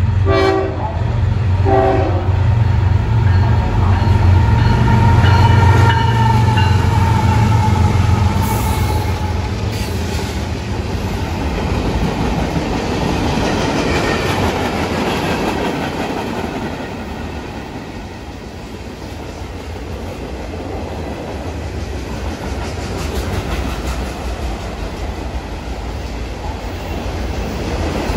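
CSX freight train led by GE ES44AC diesel locomotives passing at speed, sounding its horn in a multi-note chord that ends about eight seconds in, with a heavy engine rumble. The rumble then fades and a long string of freight cars rolls by with a steady clatter of wheels on the rails.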